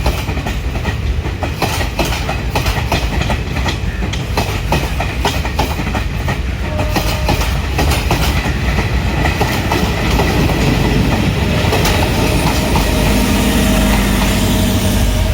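Sri Lanka Railways Class S11 diesel multiple unit with ICF-built coaches running past, its wheels clicking rapidly over rail joints. The clicking gives way to a steadier rumble with a low engine hum near the end.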